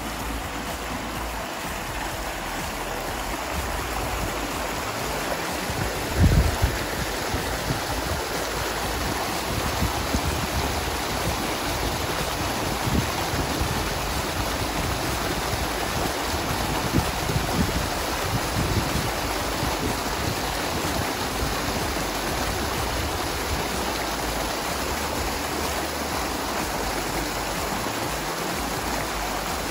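Small waterfall pouring through a narrow chute in sandstone rock into a pool, a steady rushing splash. A few low bumps stand out over it, the loudest about six seconds in.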